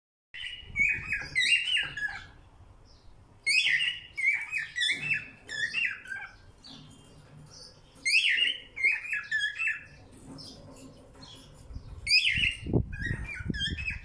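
Cockatiel singing: a warbling whistled song of quick rising and falling notes, delivered in about four short phrases with pauses between them. Low thumps join in near the end.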